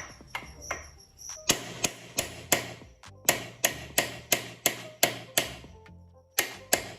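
Hammer striking the rear-wheel chain adjuster of a Bajaj Pulsar 200, sharp metal knocks in quick runs of about three a second with short pauses between runs. The adjuster is being driven back to tighten the drive chain.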